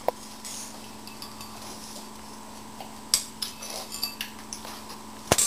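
Spoons clinking and scraping against ceramic bowls during eating: a few scattered clinks, the loudest near the end, over a steady faint hum.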